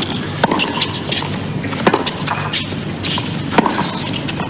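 Tennis rally: racquets hitting the ball three times, about a second and a half apart.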